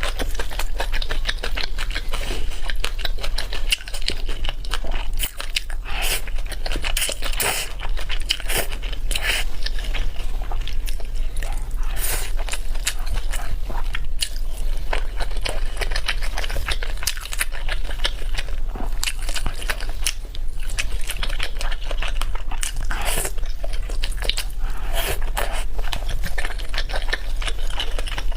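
Close-miked mukbang eating: continuous chewing and biting with dense small clicks and crackles, over a steady low hum.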